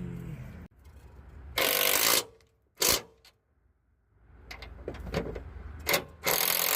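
A power tool running in short bursts, three of them, the first and last each about half a second long and the middle one brief, with faint clicks of work on the suspension between them, as the strut bolts are run back in.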